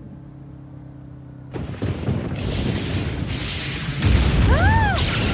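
Thunder rumbling, starting about a second and a half in and building to a heavy low rumble near the end, over a low steady car-engine hum heard from inside the cabin. A brief rising-then-falling tone sounds over the rumble near the end.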